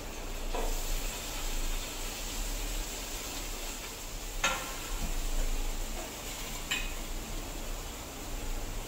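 Paneer cubes sizzling as they fry in oil in a small pan on a medium gas flame, with a steady hiss. A steel spoon clinks against the plate and pan three times.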